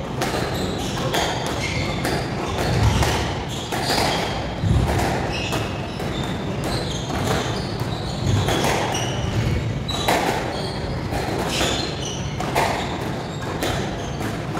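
Squash rally: the ball smacks off rackets and walls again and again at an irregular pace, with shoes squeaking and scuffing on the wooden court floor.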